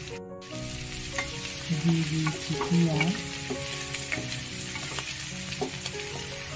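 Boiled potato wedges and chopped onion sizzling in hot oil in a non-stick frying pan while a spatula stirs and turns them, scraping and knocking against the pan. There is a brief drop-out near the start.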